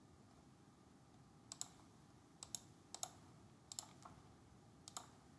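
Faint computer mouse clicks, five quick press-and-release pairs spaced about a second apart from about a second and a half in, over quiet room tone.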